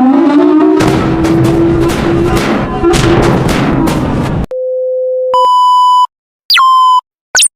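Mock emergency alert system alarm tones. First a harsh, noisy siren-like sound whose pitch rises and then holds, cutting off suddenly about four and a half seconds in. Then electronic alert beeps: a steady low tone, a steady higher tone, and short sweeping chirps with silent gaps between them.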